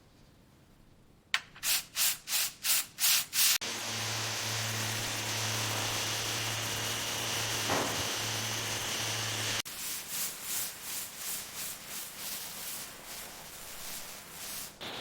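Rubbing and scrubbing strokes on a car surface during detailing, first six loud even strokes, then a faster, fainter run of about three a second. In between, a motor-driven tool runs steadily for about six seconds with a low hum under it.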